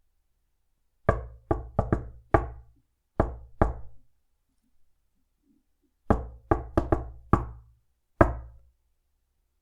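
Knocking in two rhythmic rounds. The first is a quick run of five knocks and then two more after a short pause. The second, a few seconds later, is four quick knocks and then a single last one.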